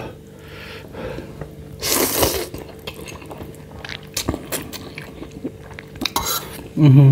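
Metal fork clinking and scraping on a metal baking tray while ramen noodles are eaten, with a loud slurp of noodles about two seconds in and some chewing. A short voiced hum comes near the end.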